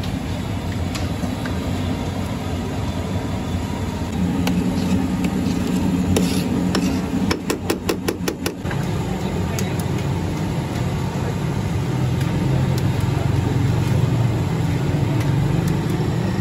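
Street ambience dominated by a steady low rumble of road traffic. A bit past the middle comes a quick run of about nine sharp clicks, some six or seven a second, from utensils knocking together.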